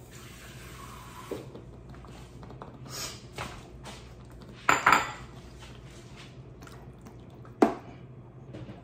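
Metal kitchen utensils and cookware clinking and clattering: a handful of separate knocks, loudest a quick double clatter about five seconds in and a sharp clink near the end.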